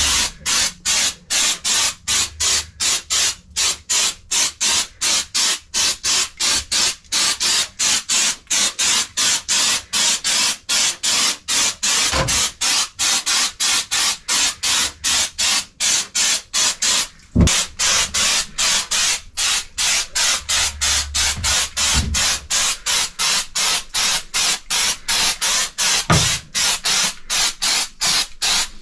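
Aerosol can of ACDelco multicolor reconditioning paint spraying in short hissing bursts, about three a second, with a few knocks in between.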